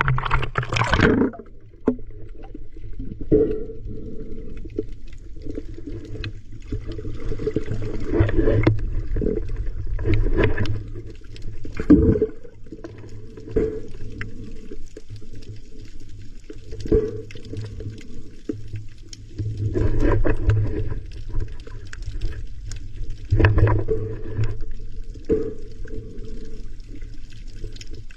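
Water heard through a submerged camera: a brief splash as it goes under the surface, then a muffled, low underwater rumble that swells and fades every few seconds.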